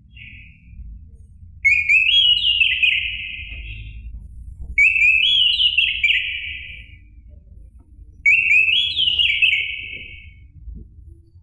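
Orange-headed thrush singing: a brief note, then three whistled phrases of quick rising and falling notes, each about a second and a half long and a few seconds apart.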